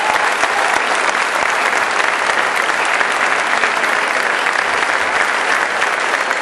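Crowd applauding steadily: dense, sustained clapping from many hands.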